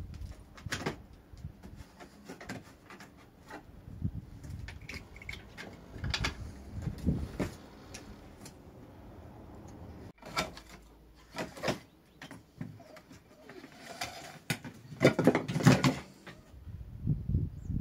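Dog rummaging in a stack of split firewood: irregular knocks and clatter of wood pieces, with a busier, louder burst of knocking about fifteen seconds in.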